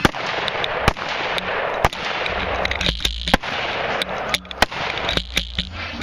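AR-15-type carbine firing single shots close up, about eight irregularly spaced cracks over six seconds, with a steady noise between the shots.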